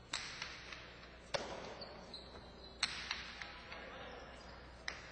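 Jai-alai pelota cracking against the fronton walls during a rally: four sharp hits about a second and a half apart, each ringing on in the hall's echo.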